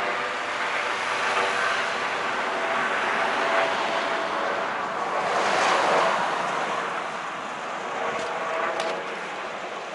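Road traffic: cars passing along the road, one going by loudest about six seconds in.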